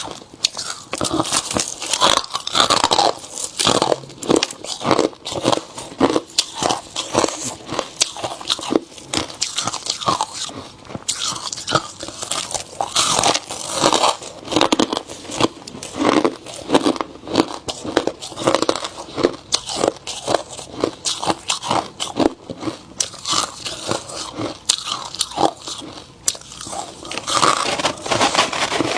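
Ice being bitten and chewed: a continuous run of sharp crunches as the ice cracks between the teeth.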